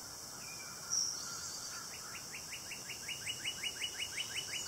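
A bird singing a rapid run of short rising notes, about five a second, beginning about two seconds in, after a single brief chirp about a second in. A steady high insect drone runs underneath.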